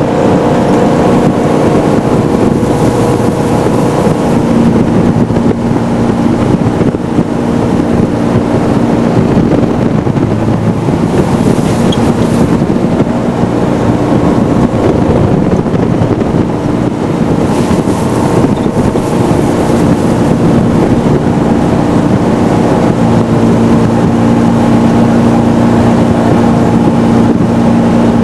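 Jet boat engine running steadily at cruising speed over a constant rush of water and wind, its note shifting slightly a few times, with brief hissy gusts now and then.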